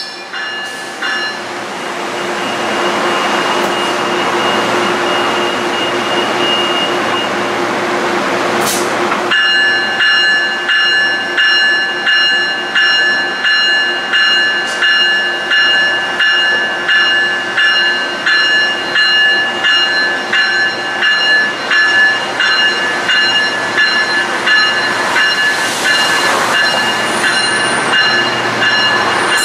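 Metrolink bilevel commuter train moving past: a broad hiss for the first several seconds, then a steady high-pitched ringing squeal that pulses about once a second.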